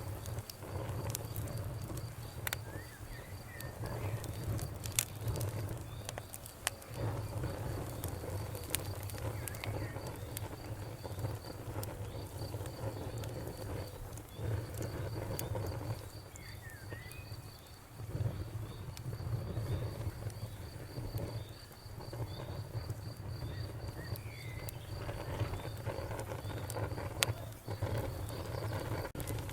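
Fire crackling, with irregular sharp pops and snaps over a low, steady rumble. A cricket chirps in an even, high-pitched pulse train behind it, with a short break about halfway through.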